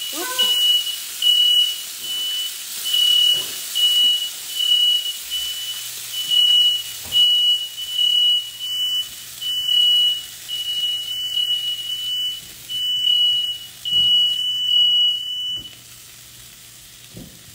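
A smoke alarm beeping over and over, a little more than once a second, set off by smoke from meatballs searing in a cast-iron skillet. It cuts off near the end, leaving a faint sizzle.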